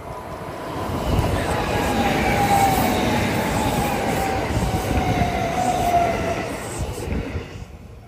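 Kintetsu 3220 series electric train passing close by: wheel and rail noise that builds about a second in and fades near the end, with a high tone that slowly falls in pitch as it goes by.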